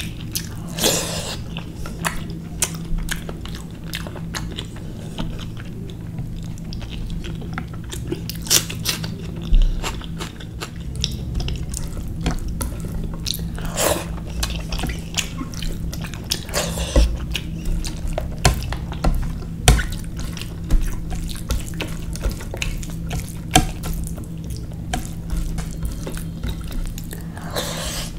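Close-miked eating of rice and curry by hand: wet chewing and lip-smacking with squelches of fingers mixing the rice and curry, many small clicks and a few louder wet smacks, over a steady low hum.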